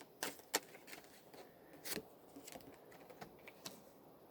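Tarot cards being shuffled by hand: a scatter of irregular light clicks and slaps, a few each second.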